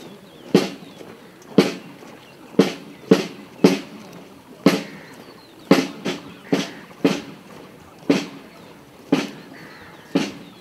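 Soldiers' boots stamping on pavement as a ceremonial guard marches in step. Each stamp is a sharp crack with a short ring, about once a second and sometimes in quick pairs.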